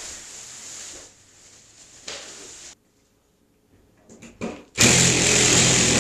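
Rustling noise for the first couple of seconds, then a brief gap, then a small motor starts buzzing loudly and steadily about five seconds in.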